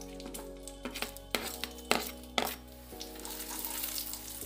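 Background music with held tones, and several sharp clinks of a metal slotted spoon against a plate and nonstick pan in the middle as seeds are tipped in. A spatula stirs nuts frying in ghee toward the end.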